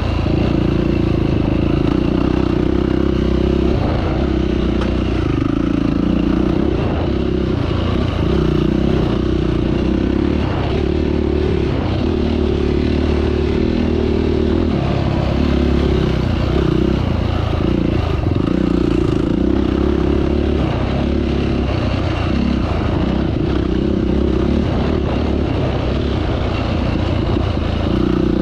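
Off-road vehicle engine running under varying throttle, with rattling and scraping from riding a rough trail.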